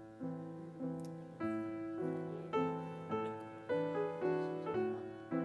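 Grand piano playing a slow, gentle piece: notes and chords struck about twice a second, each ringing and fading before the next.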